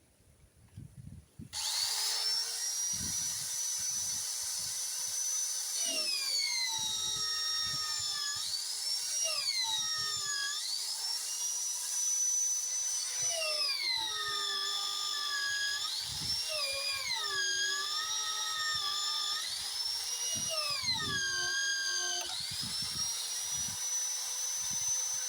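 Magnetic drill's motor starting up and cutting a 22 mm hole through the steel backhoe frame. Its whine drops in pitch several times as the cutter bites under load, then rises back as it frees up.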